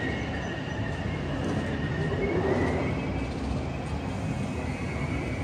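Train running through a station: a steady rail rumble with thin, high squealing tones from the wheels, swelling slightly about halfway through.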